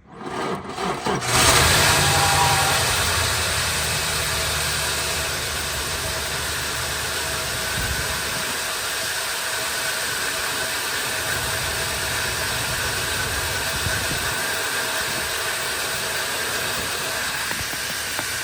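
Chevy truck's GM LS-family V8 cranking briefly and catching about a second in, then idling with an uneven, wavering low pulse. The engine shakes the truck at idle, part of a rough-idle fault that sets no codes.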